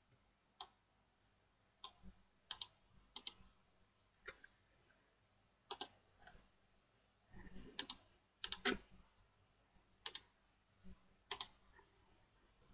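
Faint, irregular clicking at a computer: sharp single clicks scattered through the pause, several coming in quick pairs, with near silence between them.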